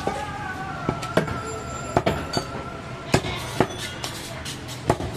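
Butcher's large knife chopping goat meat against a wooden chopping block, about seven sharp, irregular chops.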